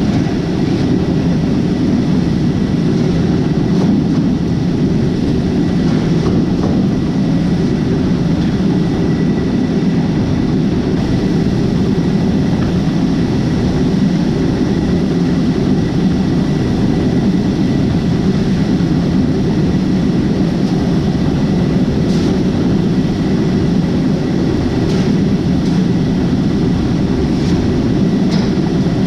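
Heavy farm machinery running steadily: a loud, even low drone with a faint high whine held throughout.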